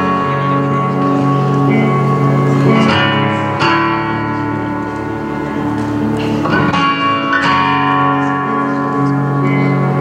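Performance music: sustained, ringing chords with fresh chords struck every few seconds.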